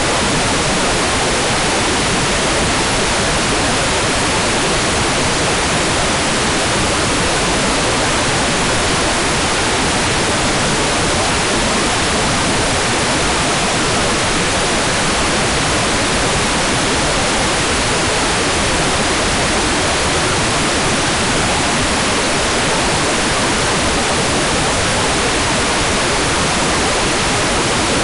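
Hair dryer running steadily: an even, unchanging rushing noise with no audible motor pitch or breaks.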